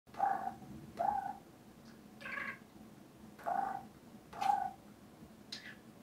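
Pet budgerigars (parakeets) giving six short pitched calls, about one a second.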